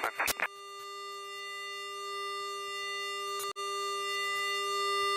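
A steady, unchanging hum with a row of overtones in the cockpit of a Boeing 777-200ER, slowly growing louder, with a brief dropout about three and a half seconds in.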